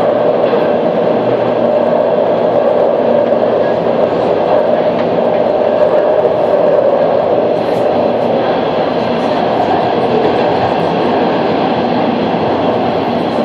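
Early CSR Zhuzhou-built Shenzhen Metro Line 5 train running between stations in a tunnel, heard from inside the carriage. A loud, steady running noise of wheels on rail with a constant hum under it.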